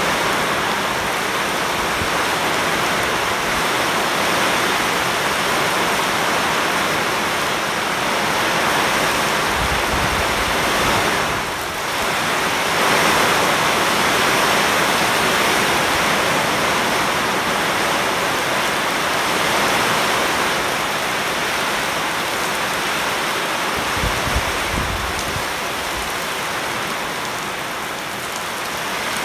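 Heavy rain pouring steadily onto standing water on a paved yard and onto leafy bushes: a dense, even hiss that dips briefly about eleven seconds in.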